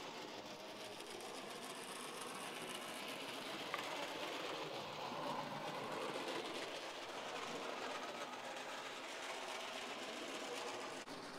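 Bachmann HO-scale DeWitt Clinton model locomotive and coaches running on track: a steady small-motor whir that swells toward the middle and eases off near the end, with one sharp click nearly four seconds in.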